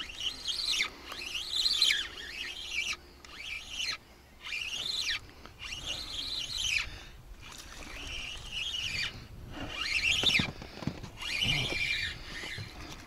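Spinning reel being cranked in short bursts while a hooked bersh (Volga pikeperch) is reeled in: a squeaky whir that rises and falls in pitch with each burst of winding, about once a second. A few dull knocks come near the end.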